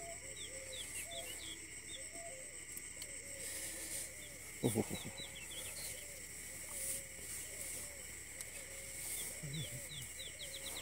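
Night forest ambience heard from inside a tent: many quick high chirping calls repeating throughout, a row of shorter lower calls, and a steady high insect-like drone. A brief vocal sound from the man in the tent about five seconds in.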